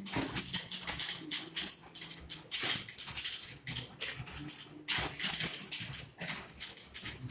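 Typewriter keys being struck in a rapid, uneven run of sharp clicks.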